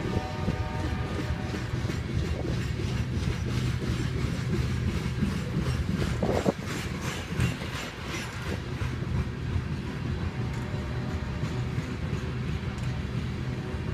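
Norfolk Southern freight train of covered hopper cars rolling past, a steady rumble of steel wheels on rail with clickety-clack. A brief louder, higher-pitched sound stands out about six and a half seconds in.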